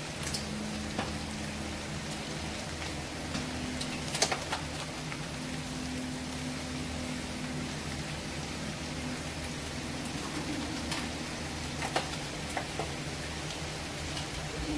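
Steady hiss of room noise with a faint low hum, and a few light ticks and clicks, the sharpest about 4 seconds in.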